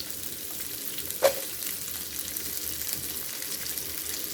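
Carrots stir-frying in hot olive oil in a pan, a steady sizzle, with one sharp knock about a second in.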